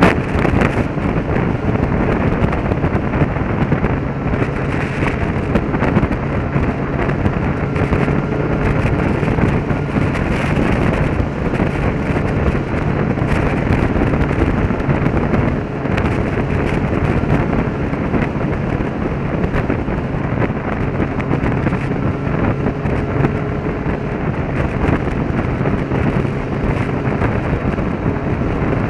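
Motorcycle riding at a steady speed, with loud wind buffeting rumbling on the helmet microphone and the engine's steady hum faintly underneath.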